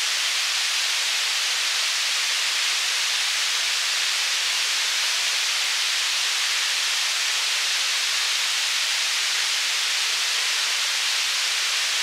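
Waterfall rushing: a dense, even hiss of falling water, steady throughout.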